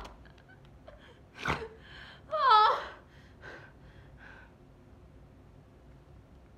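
A young woman crying: a sharp gasping breath about a second and a half in, then one loud, wavering sob, followed by a few faint whimpers.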